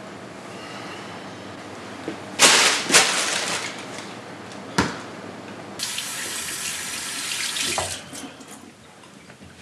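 Water running from a tap into a sink in two spells: a loud rush starting suddenly and lasting about a second, then, after a short click, a steadier run of about two seconds that stops.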